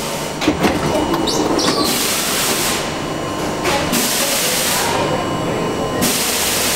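Stationary R42 subway car with its side doors sliding open, clunking as they go, while air hisses three times.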